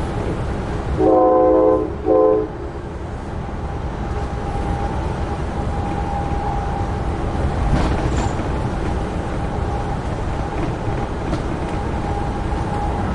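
Train horn sounding two blasts, a longer one and then a short one, over the steady rumble of the train running on the rails.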